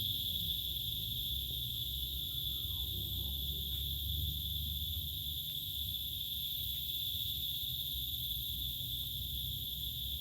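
Steady chorus of crickets, a continuous high-pitched trill, over a low background rumble.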